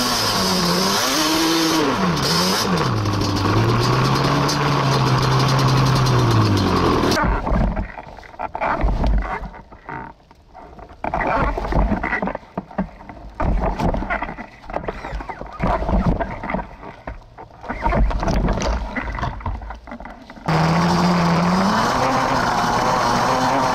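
Yamaha Banshee ATV's two-stroke twin engine revving up and down as it rides. About seven seconds in the engine sound falls away, leaving irregular thumps and knocks. It comes back, revving again, near the end.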